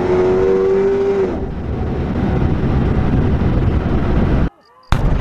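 Supercharged 6.2-litre LSA V8 of a Chevy SS under hard acceleration, heard from inside the cabin: the engine note climbs in pitch, breaks and drops about a second in, then runs on loud with road noise. Near the end the sound cuts out briefly and comes back with a sharp click.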